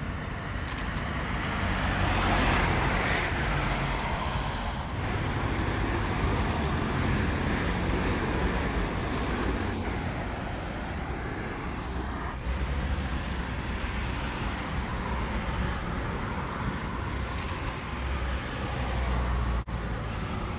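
Street traffic: steady road noise of passing cars, swelling as a vehicle goes by about two to three seconds in.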